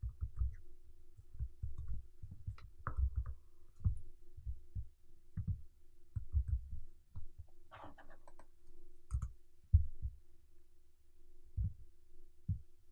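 Computer keyboard and mouse in use: irregular dull taps and clicks of keys and mouse buttons while commands are selected, copied and entered into a terminal, over a faint steady hum.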